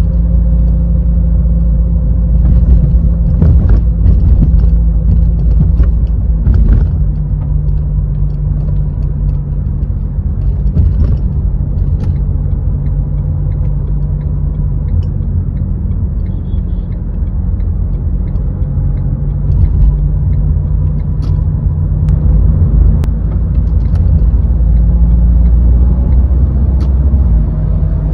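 Renault car driving in traffic: a steady low rumble of engine and road noise, with scattered faint clicks and knocks.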